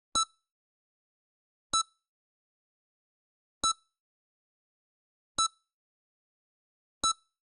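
EKG heart monitor beeping: five short, high beeps about one every 1.7 seconds with silence between, each beep marking a heartbeat.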